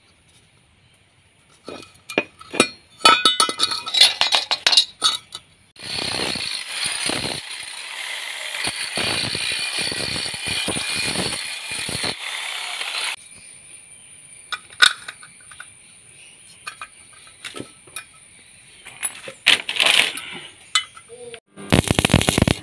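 Hammer striking a chisel on a square steel tube: sharp, ringing metal clinks, then a dense loud stretch of rapid blows, then scattered knocks. Near the end, a brief loud crackle of stick arc welding.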